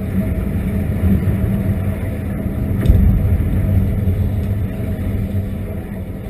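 Underwater sound: a steady low mechanical hum, with air bubbling from the divers and a louder rush of air about three seconds in.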